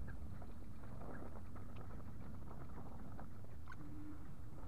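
Oxy-acetylene torch flame running steadily with a low rushing sound, with scattered small crackles as a flux-coated nickel-bronze rod is melted into a groove in cracked cast iron.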